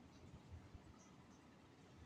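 Near silence: faint room tone with soft low bumps, and two very faint, short, high-pitched peeps about a second in.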